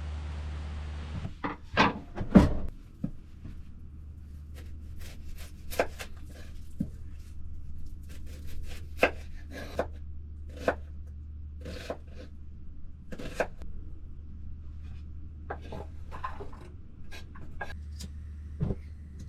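Small objects being handled close by: irregular clicks, taps and rubbing, with a louder knock or two about two seconds in, over a low steady hum.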